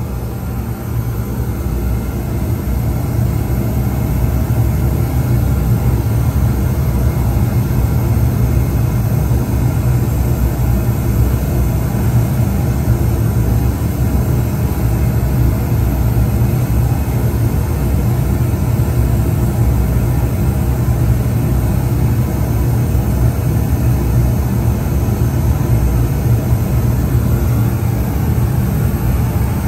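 Steady, bass-heavy noise test signal played through the passive 18-inch subwoofer and 15-inch bass speakers while the crossover is being measured and tuned. It grows louder over the first few seconds and then holds steady.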